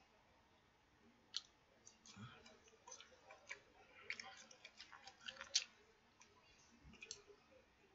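Chopsticks clicking and scraping against a rice bowl while white rice is scooped up and eaten: a scatter of faint, irregular clicks, the loudest about five and a half seconds in, with some quiet chewing.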